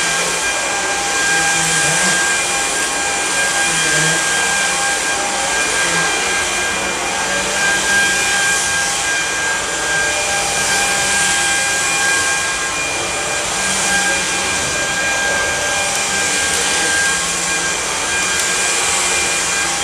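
Samsung Jet VS70 cordless stick vacuum running steadily on carpet: a constant rush of suction with a steady high motor whine on top.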